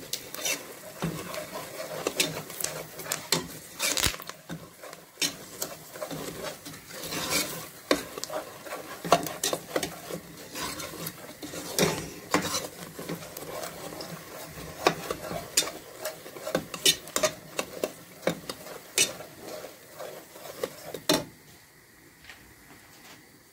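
A steel ladle stirring and scraping gram flour as it fries in oil in a metal pot, with frequent clinks of the ladle against the pot over a light sizzle, as the besan is roasted to dark brown. The stirring stops about two seconds before the end.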